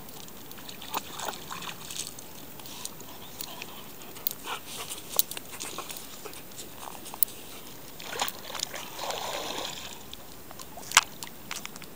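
A greyhound splashing in shallow water, then gnawing a stick: scattered splashes and sharp cracks and clicks.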